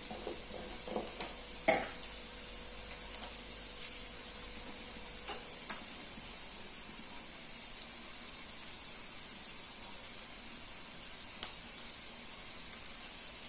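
Diced bottle gourd (lauki) and chana dal frying in oil in a steel kadhai, a steady sizzle. A few sharp clicks and taps come through it while the salt jar is handled, the loudest just under two seconds in and another near the end.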